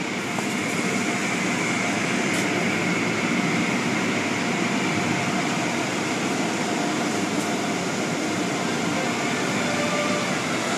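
Automatic car wash in operation, heard from inside the car: a steady rush of water spray and cloth brushes working over the body and windshield, with the hum of the wash machinery.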